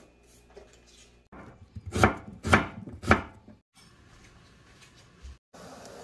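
Three sharp knife chops on a cutting board, about half a second apart, followed near the end by a steady hiss.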